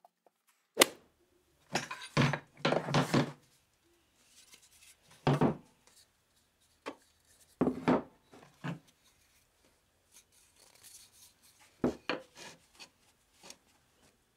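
Hand tools being handled and set down on a wooden workbench: a sharp knock about a second in, then a run of rubs and knocks, and more clunks as hammers are laid on the wood.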